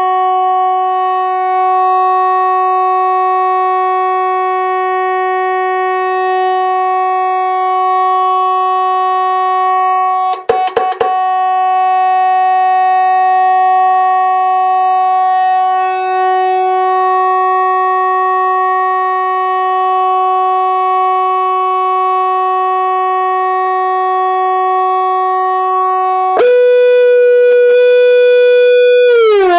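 Point Abino lighthouse fog horn unit sounding a loud, steady horn tone with a brief stutter about ten seconds in. Near the end the tone jumps to a higher, louder pitch for about three seconds, then slides back down to the original note.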